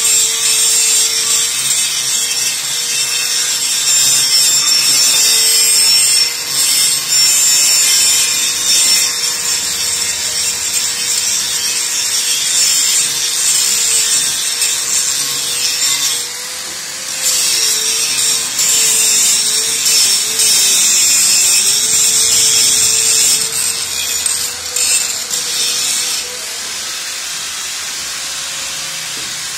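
Handheld angle grinder grinding a steel base plate at its weld to a steel rod: a steady motor whine under a harsh, hissing scrape of the disc on metal, the whine sagging a little under hard pressure about 21 seconds in. The scraping stops for about a second around 16 seconds in and again from about 26 seconds, leaving the grinder spinning free.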